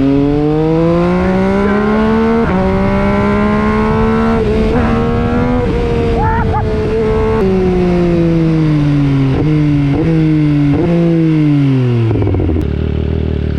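2019 MV Agusta Brutale 800's inline-three engine through an FM Projects exhaust, accelerating: the revs climb, drop at an upshift about two and a half seconds in, and climb again. From about halfway the revs fall as the bike slows, with three quick rises at the downshifts, and the engine settles to a steady idle near the end.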